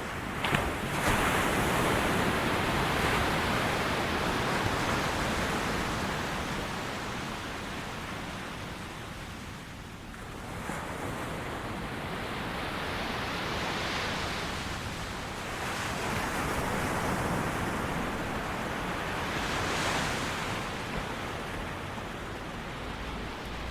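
Ocean waves breaking on a beach: a steady hiss of surf that swells as each wave breaks and fades back, with swells about a second in, near the middle and near the end.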